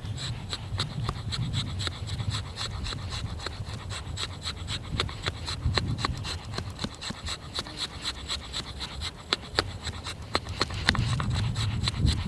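Freshly sharpened axe blade shaving curls off a stick of wood in repeated scraping strokes, the wood fibres crackling and clicking as they part. The keen edge is being tested by carving feather-stick curls. A steady low rumble runs underneath.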